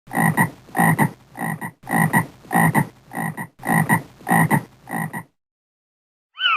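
A frog croaking, a steady run of about nine rasping croaks at under two a second. Right at the end a short falling boing-like sound begins.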